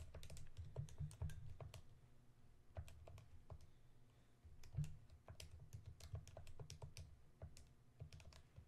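Faint key presses in short, irregular runs of clicks with dull thuds beneath: a sum being keyed in.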